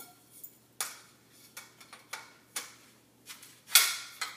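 Two metal crossbar sections of a backdrop stand knocking and clicking against each other as they are fitted together: a string of sharp clicks about every half second, the loudest one near the end ringing briefly.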